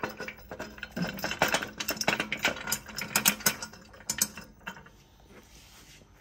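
Metal clicking and rattling as washers and a steel eye nut are fitted and spun onto a bolt by hand, the clicks coming thick and fast for a few seconds before dying away near the end.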